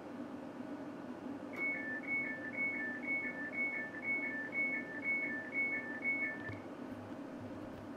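Class 730 train's door-release warning beeper sounding a two-tone high-low beep about twice a second for about five seconds, signalling that the passenger doors are released at the station, over the steady hum of the carriage.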